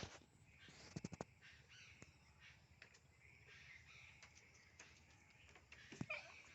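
Crows cawing faintly, with a quick run of sharp clicks or knocks about a second in.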